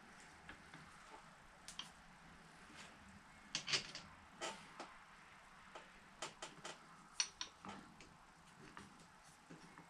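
Scattered light clicks and knocks of parts being handled and fitted as a mini bike's front fork is put together, with a cluster of louder knocks in the middle.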